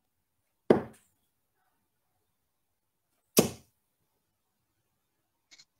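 Steel-tip darts striking a dartboard: two sharp hits about two and a half seconds apart, then a much fainter tap near the end.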